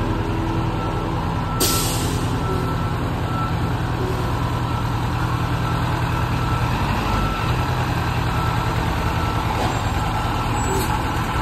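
Fire ladder truck backing up, its engine running under the repeating beep of its reversing alarm. A short burst of hissing air sounds about a second and a half in.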